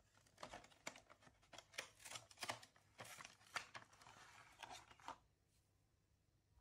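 Faint crackling and rustling of a screwdriver set's plastic packaging being handled, irregular crackles for about five seconds before it stops.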